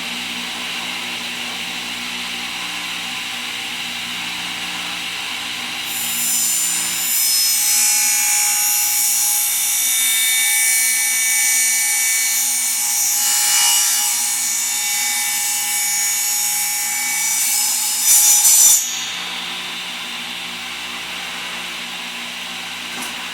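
Table saw running steadily, then its blade cutting through a wooden board for about thirteen seconds, with a brief louder burst near the end of the cut as the board is pushed through. The saw then runs free again.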